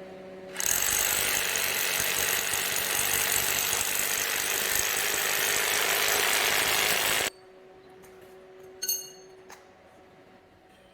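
Hammer drill boring an anchor-bolt hole into the washer extractor's mounting platform, starting abruptly and running steadily for about seven seconds before cutting off.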